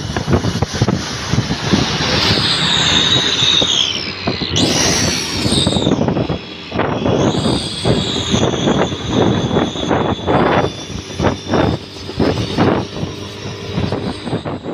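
Exhaust of a Daihatsu Gran Max pickup fitted with a homemade 'suos' whistle tip, giving a jet-like whistle over the engine's pulsing exhaust note. The whistle rises and falls in pitch several times as the engine is revved.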